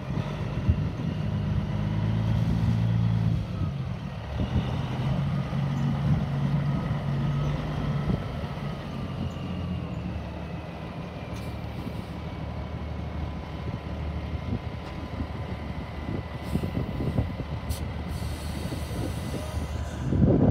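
Diesel engine of a semi-truck tractor running steadily, its low rumble a little stronger for the first several seconds.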